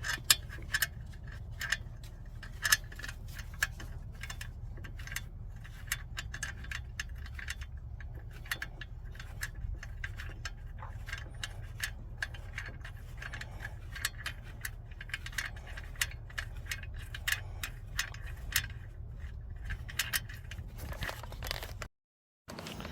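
Hand tools clicking and clinking on metal as a bolt is run in and tightened on the exhaust of a 1999 Honda Civic: irregular sharp ticks like a ratchet, over a steady low hum. The sound cuts out briefly near the end.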